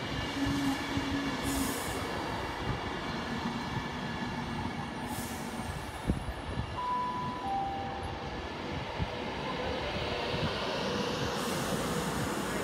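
Virgin Pendolino (Class 390) electric train rolling along the platform: a steady rumble and hiss of wheels on rail. About seven seconds in come two short tones, one higher then one lower.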